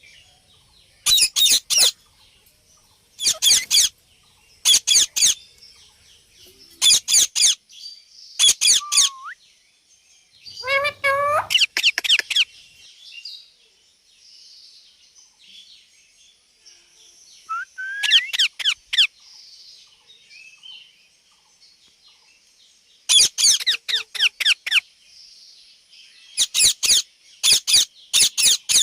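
Pet parrot calling in about nine short bursts of rapid, high-pitched chirps and squeaks, with pauses between them; one burst, near the middle, slides upward in pitch.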